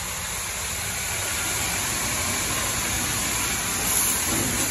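A pressure washer jet spraying water onto a motorcycle, a steady loud hiss of spray.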